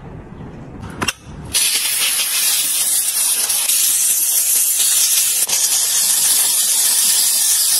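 Handheld steam cleaner's small yellow nozzle jetting steam into a window frame's track, a loud steady hiss that starts about a second and a half in, just after a click.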